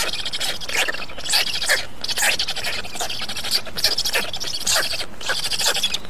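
Black stork chicks making rasping, scratchy begging calls, with many quick falling sweeps a few times a second.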